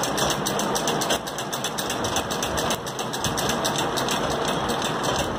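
Straight-stitch sewing machine stitching through two layers of fabric, its needle mechanism making a rapid, even clatter while the stitch-length regulator is moved to run a reverse (back-tack) stitch.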